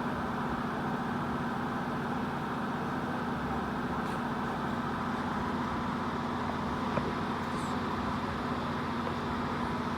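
A steady low droning hum over hiss, with a faint click about seven seconds in.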